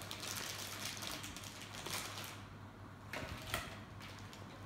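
A small plastic bag of board-game pieces crinkling in the hands for the first couple of seconds, then a few light clicks and taps of plastic pieces.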